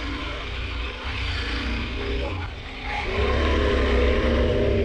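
KTM 1190 Adventure R's V-twin engine running under way, getting louder and pulling harder from about three seconds in, over a steady hiss.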